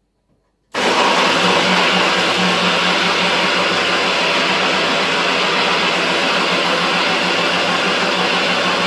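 Personal bullet-style blender switching on within the first second and then running steadily at full speed, blitzing unsoaked cashew nuts with water kefir and water.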